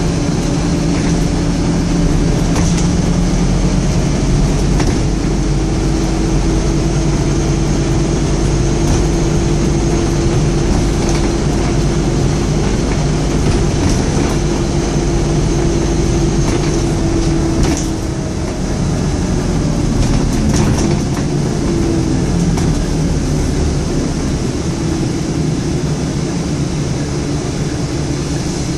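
Scania N230UD double-decker bus under way, heard from the upper deck: its diesel engine and drivetrain drone steadily, with frequent small rattles from the interior fittings. A steady whine comes in about five seconds in and fades near eighteen seconds, when the sound eases a little.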